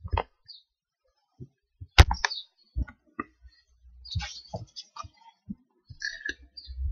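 Irregular knocks and clicks of handling noise close to a laptop's built-in microphone, with hands bumping and tapping the machine, the loudest knock about two seconds in.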